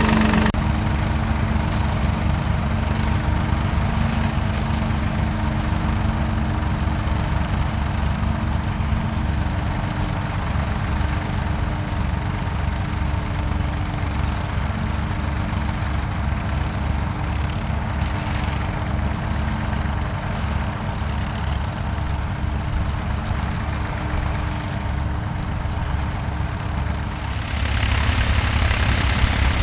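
David Brown tractor diesel engines running steadily under load while working maize stubble with a plough and a rotavator. About 27 seconds in the sound turns louder, with a David Brown 885 working close by.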